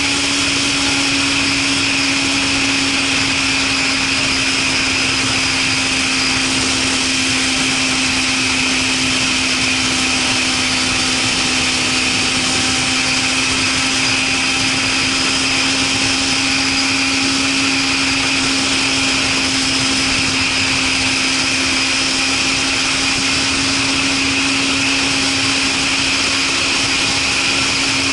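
Suzuki Katana motorcycle with a Super Combat aftermarket exhaust, ridden at a steady engine speed: an even engine drone that barely changes pitch, over a constant rushing noise.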